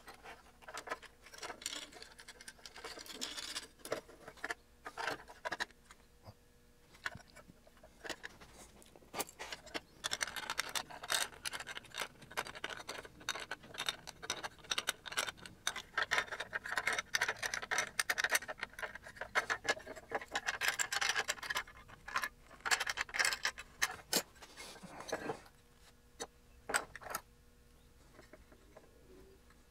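Handling noise on a workbench: irregular clicks, taps and scrapes as an aluminium instrument front panel with BNC connectors and small amplifier circuit boards are picked up and fitted together. The clicks thin out near the end.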